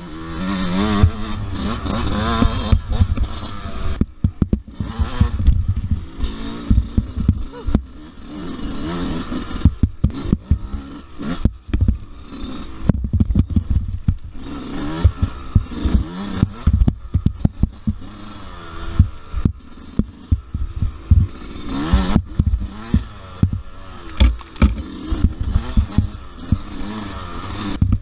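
Dirt bike engine revving up and down, its pitch rising and falling with the throttle on a rough woods trail, with frequent sharp knocks and clatter from the bike and suspension hitting roots and bumps.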